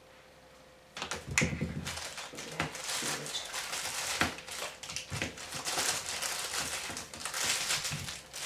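Plastic packaging crinkling and rustling as it is handled, with many small clicks and knocks, starting about a second in.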